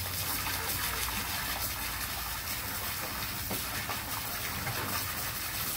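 A garden hose jet splashing steadily into a plastic kiddie pool, stirred up by a German shepherd puppy splashing in it.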